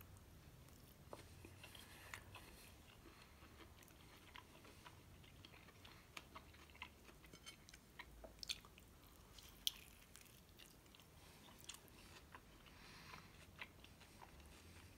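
Faint chewing and biting on a slice of air-fried pizza, with irregular soft crunches and mouth clicks, a sharper crunch about two-thirds of the way through.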